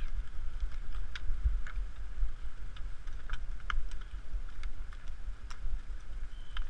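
Wind rumbling steadily on the camera microphone, over scattered light clicks from the hooves and tack of a group of Icelandic horses walking on a sandy, stony riverbank.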